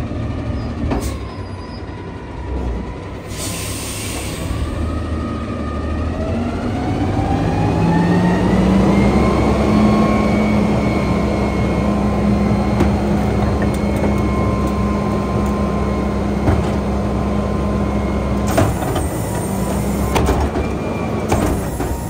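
Autocar McNeilus front-load garbage truck's diesel engine running, with a sharp air hiss about three seconds in. From about eight seconds the engine speeds up and holds a steady higher pitch, as for working the carry can's hydraulics, and more air hisses come near the end.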